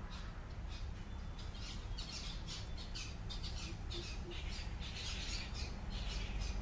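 A bird giving a rapid series of short, harsh squawks, about three a second, growing louder after the first second or two, over a steady low rumble.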